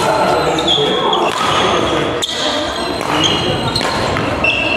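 Badminton players' court shoes squeaking in short chirps on a sports-hall floor during a fast rally, with a sharp racket strike on the shuttlecock about two seconds in, in an echoing hall.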